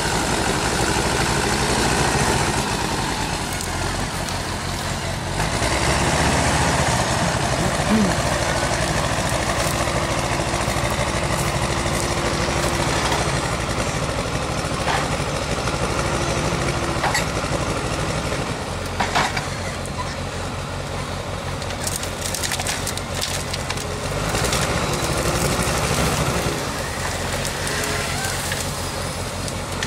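Diesel engine of a Timberjack 1110D forestry forwarder running steadily under hydraulic load while its crane works, the engine note shifting about two-thirds of the way through. Sharp cracks of branches snapping in the grapple come several times in the second half.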